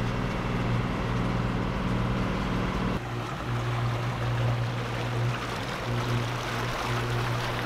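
Sailboat's inboard diesel engine running at a steady low hum while motoring, with water rushing past the hull.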